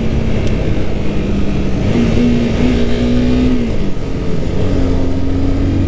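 Motorcycle engine running at road speed under heavy wind rumble. Its pitch rises a little about two seconds in, drops back near four seconds, then holds slightly higher.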